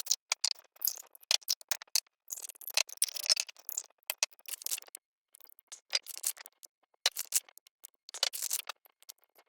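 Quick irregular clicks, taps and scrapes of small things being handled, with a denser scratchy stretch about two to four seconds in and another shortly before the end.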